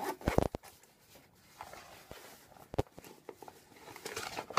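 Handling noise as tall black boots are pulled on: soft rustling with a quick cluster of sharp knocks about half a second in and another single knock near the three-second mark.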